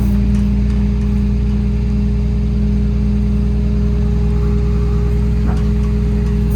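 The Kenworth T370's PX-6 diesel engine running steadily with its PTO engaged to power the crane hydraulics. A constant hum is held over the engine note the whole time.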